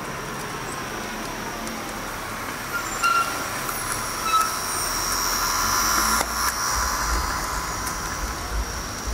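H0-scale model trams running on a layout: a steady high whine of small electric motors and wheels on track, with short squeaks about three and four seconds in. It grows louder past the middle, with a click and a low rumble around six seconds in.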